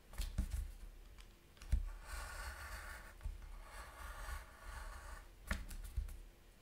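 Craft knife cutting through double-thickness card on a cutting mat: short scratchy strokes, with a few sharp clicks.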